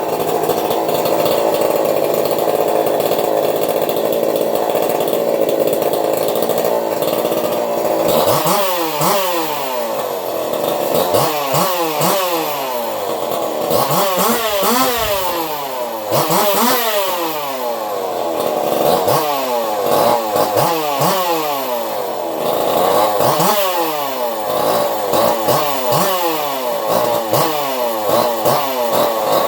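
Two-stroke chainsaw engine, custom-built with a swapped crank and piston and a modified muffler, running on a bench. It runs steadily for about eight seconds, then is revved up and down over and over, a rising-and-falling rev every second or two.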